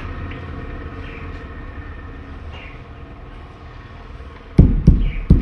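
Wooden ajrak printing block struck by hand onto cloth on a padded printing table: three dull thuds in quick succession near the end, over a steady low rumble.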